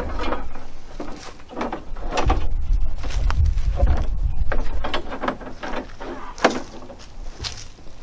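Steel band-saw blade being worked onto the wheels and through the guides of a Norwood HD36 portable band sawmill: irregular metallic clicks, scrapes and rattles as it is handled. A low rumble runs under it at the start and through the middle.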